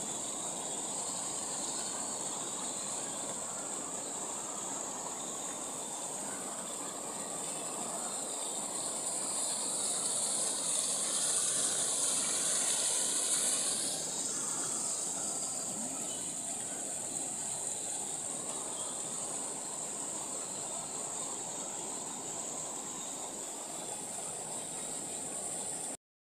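Steady rushing of a fast mountain river: a continuous hissing roar of water that swells for a few seconds midway, then cuts off abruptly at the very end.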